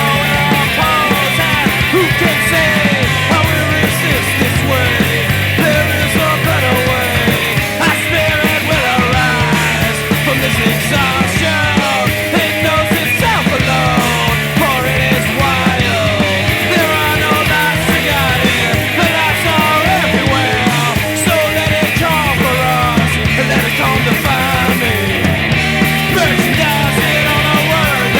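Punk rock band recording of drums, bass and electric guitar, playing loud and steady.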